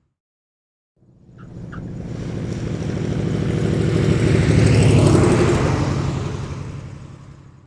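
Propeller-driven aircraft passing by, its engine and prop drone building up, loudest about five seconds in, then fading away.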